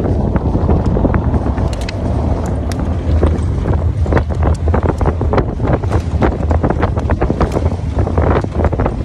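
Wind buffeting the phone's microphone in the open bed of a moving pickup truck, over a steady low rumble of the truck and its tyres on the road. From about four seconds in, frequent sharp clicks and knocks sound through it.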